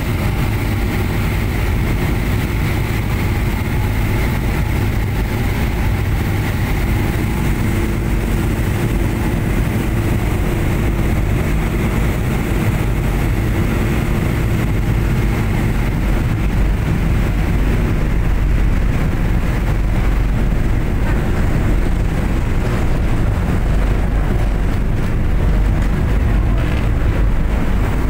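A boat's engines running steadily with a constant low rumble, mixed with the rush of churned water along the hull.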